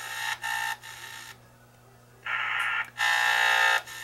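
SI4732 pocket all-band radio's small speaker giving short bursts of buzzy static that cut in and out several times as it switches bands and retunes, with no station coming through.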